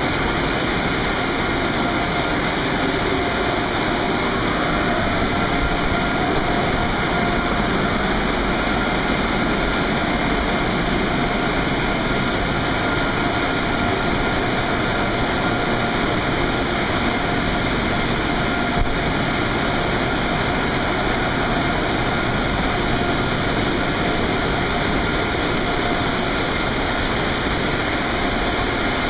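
Automatic car wash blower dryers running: a steady loud rush of air with a faint steady whine over it.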